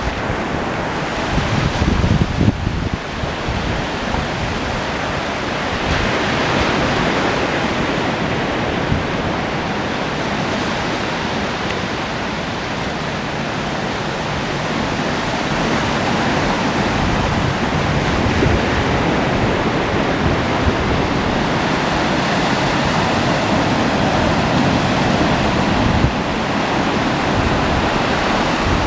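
Waves breaking on a beach, a continuous wash of surf that swells and eases. Wind buffets the microphone with low rumbles in the first few seconds.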